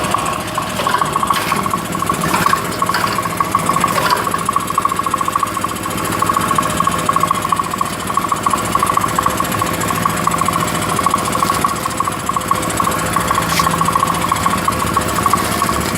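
Automatic packing machine running, with a fast, even mechanical rattle over a steady hum.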